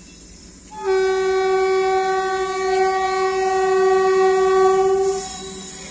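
Approaching train's horn sounding one long, steady blast of about four seconds, starting about a second in.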